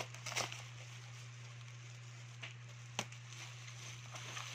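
Plastic bubble wrap crinkling and rustling as it is pulled and cut with scissors, with a few sharp clicks, the loudest about half a second in and about three seconds in. A steady low hum runs underneath.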